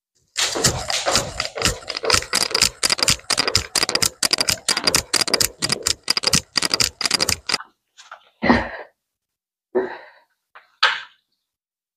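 A fast run of sharp taps or clicks, about five a second, lasting some seven seconds, followed by three or four separate knocks.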